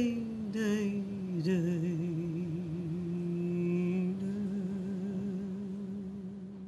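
A woman's solo voice, unaccompanied, singing a slow waltz melody. The pitch falls in the first second, then she holds one long note with a slow, wavering vibrato that fades toward the end.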